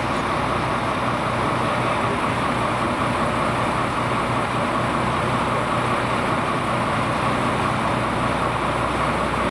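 Magirus airport crash tender's large diesel engine idling: a steady, unchanging run with a low hum under it.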